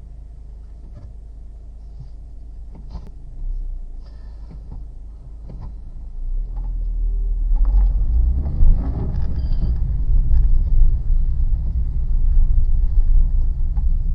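A car's engine and road noise heard from inside the cabin: a low rumble that grows louder about six seconds in, rising in pitch as the car speeds up, with a few faint knocks before that.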